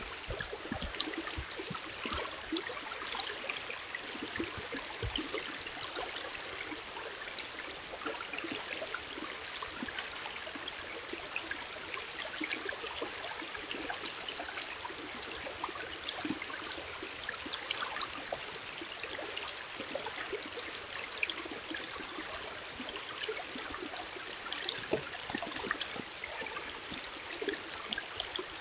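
A shallow stream running over rocks: a steady rush of water with many small splashing ticks.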